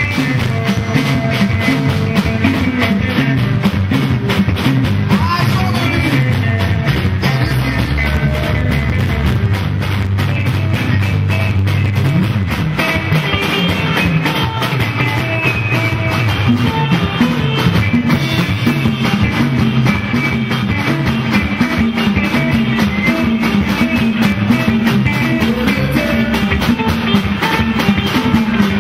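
Live band music: electric guitars playing over a steady drum-kit beat.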